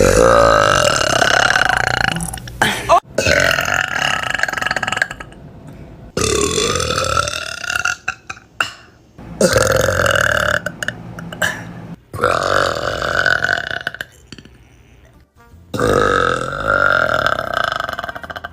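A series of about six long, loud burps by young women, one after another, each lasting one to three seconds.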